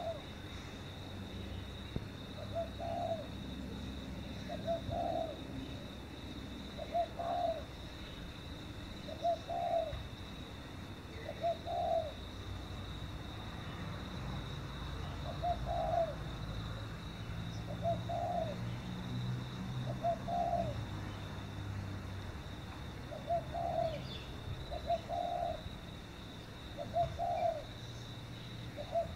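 Dove cooing over and over, one short coo about every two seconds.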